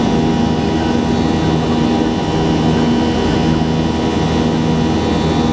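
Steady drone of a Boeing 737-800's CFM56-7B turbofan engines heard inside the cabin over the wing, climbing out after takeoff. A rush of air carries several steady hums and whines.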